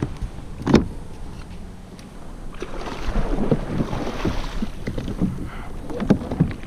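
Knocks and clunks on the hull of a plastic Hobie Revolution pedal kayak as gear is handled aboard on the water, with a rushing water-and-wind noise that swells in the middle.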